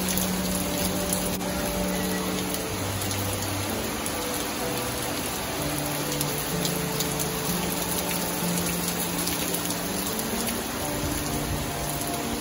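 Heavy rain pouring steadily, a dense hiss that holds level throughout. Underneath runs soft background music of slow held notes.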